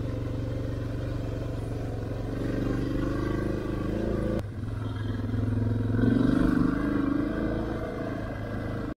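Dual-sport motorcycle engine running under load on a dirt trail, its note rising twice as the rider accelerates. A short break comes about four and a half seconds in.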